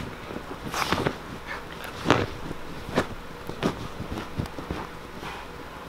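A wet, freshly bathed dog scrambling and rubbing its head and body along a cloth-covered couch, giving irregular rustles of fabric and soft thumps of paws and body.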